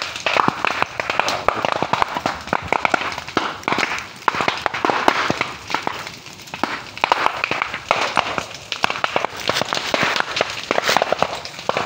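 Bagakay bamboo burning in an open fire: dense crackling with many sharp pops.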